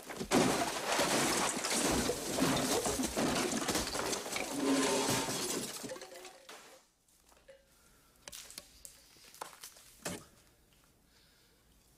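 Glass bottles and jars smashing and goods crashing off a store shelf as it is struck with a baseball bat: a dense crash of breaking glass lasting about six seconds, then dying away. A few light knocks follow, one as a soda can is set down on the counter.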